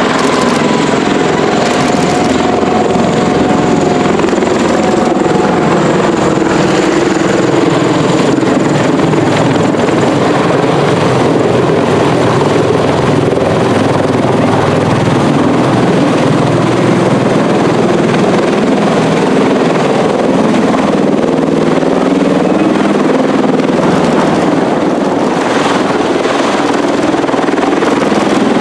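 MV-22 Osprey tiltrotor with its prop-rotors tilted up in helicopter mode, flying low overhead and descending to land: a loud, steady rotor and turbine drone.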